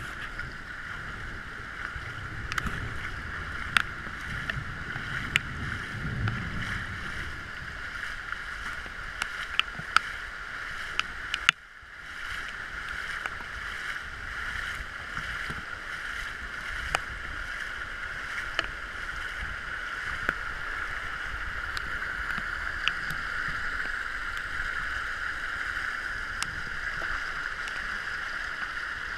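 Steady hiss of heavy rain and flowing floodwater, with scattered sharp taps of raindrops striking the camera.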